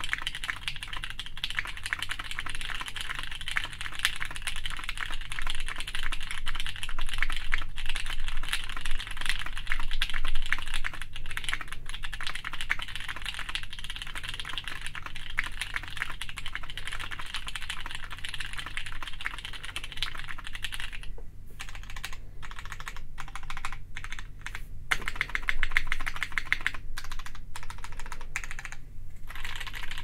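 Fast, steady typing on a Hex 3cv2 custom mechanical keyboard with Cherry MX Clear tactile switches, mounted plateless, with GMK Norse keycaps. A dense run of keystrokes, broken by a few short pauses in the last third. Heard through stereo in-ear microphones.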